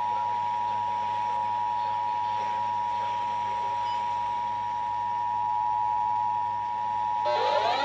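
Emergency Alert System attention signal: the standard two-tone broadcast alarm, 853 and 960 Hz sounding together, held steady for about eight seconds to announce an emergency message, here a flood warning. Just before the end, a rising siren-like sweep starts over it.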